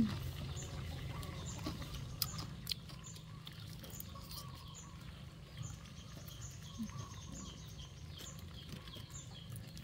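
Outdoor ambience: short high chirps, one about every second, over a steady low rumble, with a few sharp clicks a little after two seconds in.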